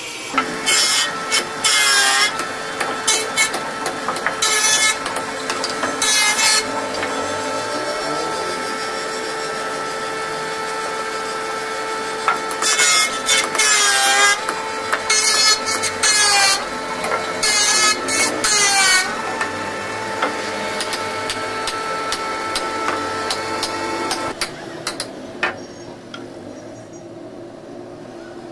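Woodworking machines cutting cricket bat willow: a bandsaw and then an electric jointer run with a steady whine, broken by loud rasping bursts each time the wood is fed through, the pitch sagging under the load. The machine winds down near the end, leaving a quieter hum.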